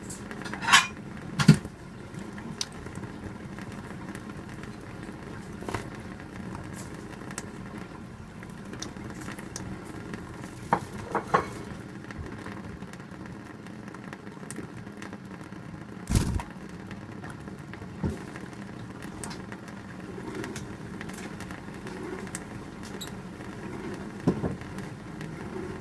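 A budgerigar bathing under a trickle of falling water: a steady splashing and trickling, with scattered sharp clicks and knocks, the loudest about two-thirds of the way through.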